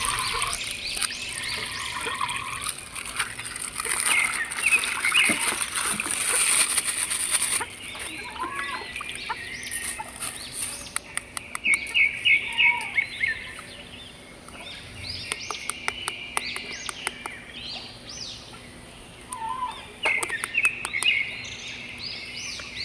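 Small birds chirping repeatedly. Running water hisses under them for the first seven seconds or so, and scattered sharp clicks follow.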